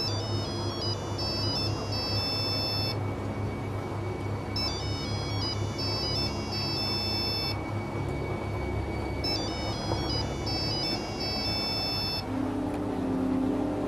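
Mobile phone ringing: a short, high electronic ringtone melody that repeats about every four and a half seconds, with pauses between, over a low, steady background music score.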